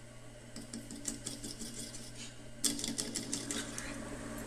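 Quick runs of metallic clicking and rattling, over a steady low hum, as parts on the wood lathe are moved and the stem is taken out. The clatter gets denser and louder about two and a half seconds in.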